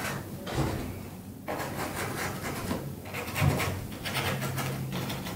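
Bristle paintbrush scrubbing paint onto a canvas in a few rubbing strokes with short pauses between.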